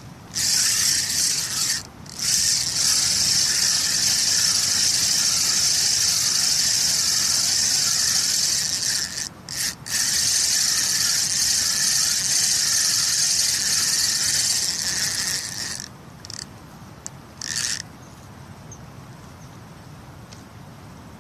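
Fishing reel being cranked to wind in line with a fish on, a steady high whirr that swells and fades with each turn of the handle, pausing briefly twice and stopping about sixteen seconds in.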